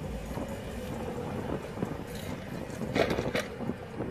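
Low steady rumble of a vehicle heard inside a car, with two short sharp clicks a little under half a second apart about three seconds in.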